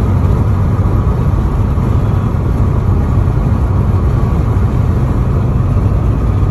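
Steady low road and engine rumble inside a moving car's cabin at highway speed.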